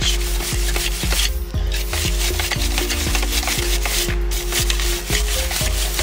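Wet, stiff plant-fibre bristle chain brush scrubbing a bicycle drive chain hard, in quick back-and-forth strokes about two a second, working off degreaser and grime.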